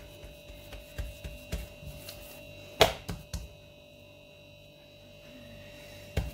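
Hands working a round of leavened msemen dough on a countertop: soft taps and pats as fingertips poke and press the dough, with one sharper knock about three seconds in. A steady electrical hum runs underneath.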